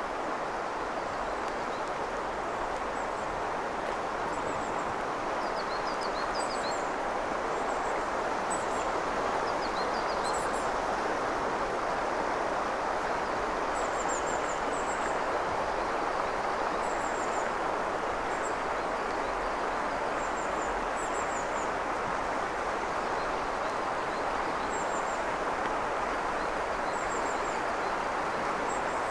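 Shallow mountain river running over stones, a steady rush of water, with small birds giving brief high chirps every few seconds.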